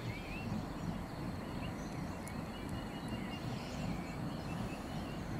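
Quiet outdoor ambience: a steady low background rumble with a few faint, scattered bird chirps.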